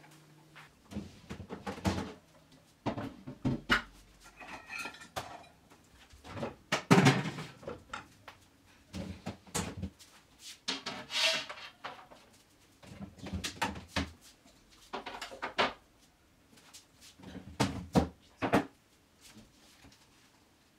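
A refrigerator being emptied and cleaned out by hand: scattered knocks, clinks and clatters of containers, shelves and drawers being handled, with a few longer scraping or rustling sounds.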